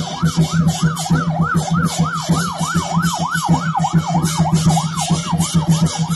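Lion dance percussion: a drum beaten fast with cymbals clashing on each beat, over a wailing tone that rises and falls about three times a second.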